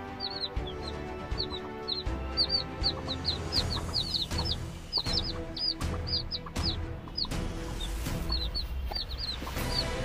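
Parrot-beak Aseel chicks peeping: rapid, short, high calls, several a second, overlapping.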